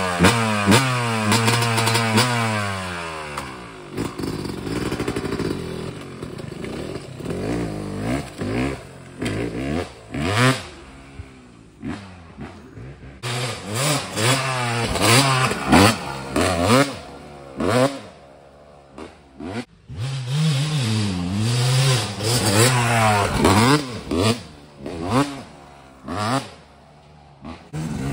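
Yamaha YZ250 single-cylinder two-stroke dirt bike engine being ridden hard, its pitch climbing and dropping again and again through throttle and gear changes. It is loudest as it pulls away, grows fainter as the bike rides off, and comes back louder in stretches as it goes around the track.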